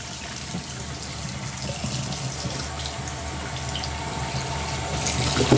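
Water running steadily from a tap into a sink, pouring over an alarm clock held under the stream.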